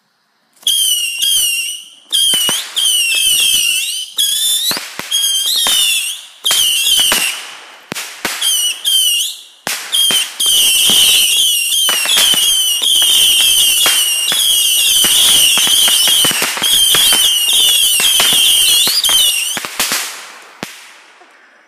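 Whistling fireworks going off in rapid succession: sharp cracks, each followed by a shrill wavering whistle, coming thick and overlapping for about twenty seconds before fading out near the end.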